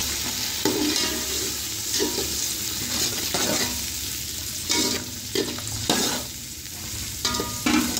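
A metal spoon stirring and scraping a metal pot of onions, tomatoes and green chillies frying in oil, over a steady sizzle, with a scrape every second or so.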